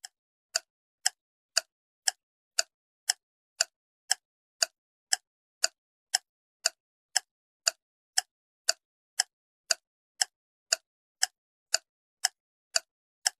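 Countdown-timer tick sound effect: a steady run of short, sharp, clock-like ticks, about two a second, timing the guess.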